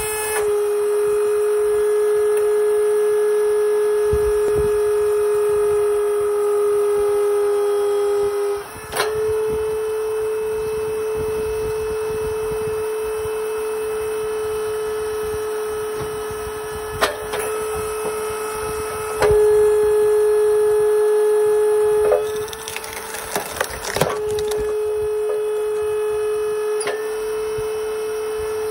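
DOCMA SF110 vertical log splitter's electric motor and hydraulic pump running with a steady, high hum whose pitch and loudness shift as the ram travels and takes load. A few sharp cracks of wood splitting come through, one about nine seconds in and others later.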